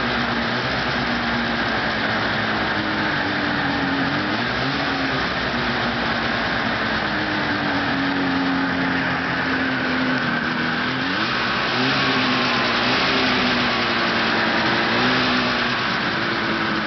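Rotax 503 fan-cooled two-stroke engine of a 1980 Bombardier snowmobile running steadily, with several brief throttle blips that raise and drop its pitch. Freshly fitted with new fuel lines, it is running well.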